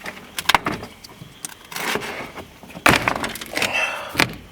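Sharp clacks and cracking of broken bowling-ball pieces being handled, with several separate knocks and short rustles. The loudest knock comes about three seconds in.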